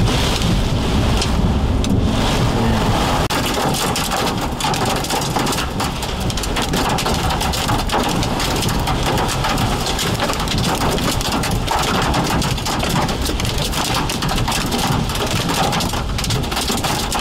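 Heavy rain and hail pelting the roof and windshield of a moving vehicle, a dense, steady patter of sharp hits over the hiss of the downpour.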